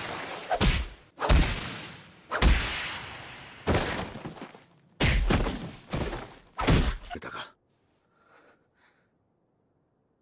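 Anime fight sound effects: a run of about ten heavy thuds and whacks, each ringing out briefly, as bodies are struck and thrown onto rock. They stop about seven and a half seconds in, followed by two faint short sounds.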